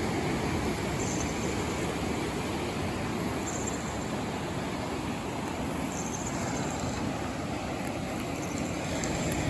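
Steady rumbling noise of wind buffeting the microphone over surf breaking on the shore.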